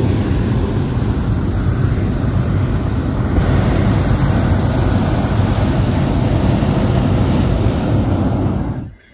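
Hot air balloon's propane burner firing in one long continuous blast, a loud steady rush that cuts off suddenly near the end, heating the envelope for lift-off.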